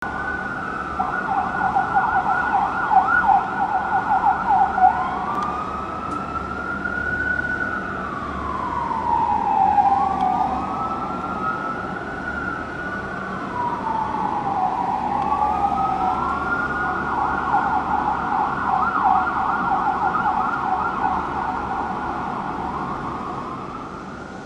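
2007 Spartan Gladiator/Smeal fire engine's siren, heard from high above the street. It runs in a fast yelp, changes about five seconds in to a slow rising-and-falling wail for three long sweeps, then goes back to yelp. It fades a little near the end.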